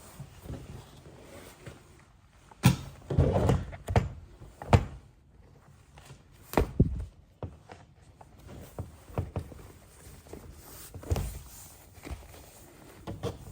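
Dull thunks and knocks of a motorcycle seat and its cover being handled and turned over on a work surface. They come in a cluster a few seconds in, with two more a little later and one near the end, and quieter rustling and handling noise between them.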